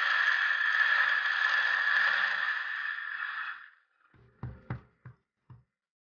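Electric coffee grinder grinding beans into a portafilter, a steady whirring that winds down and stops a little past halfway. Four light knocks follow.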